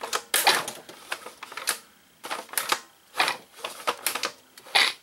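Push-mower engine's recoil starter being tugged so the crankshaft turns over, giving a series of short rattling clatters about every half second to second.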